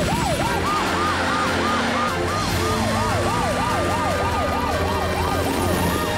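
Several emergency-vehicle sirens sounding together from the cartoon rescue team (police car, ambulance and fire engine). Quick rising-and-falling yelps, about three or four a second, overlap a slower wail that rises and falls over several seconds, above a low steady hum.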